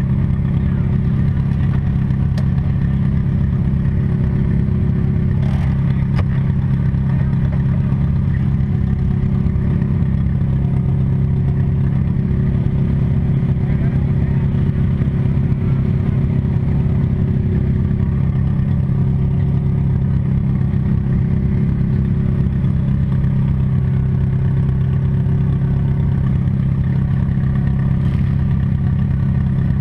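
Demolition derby car's engine running steadily, heard from inside the car, with a few sharp knocks now and then.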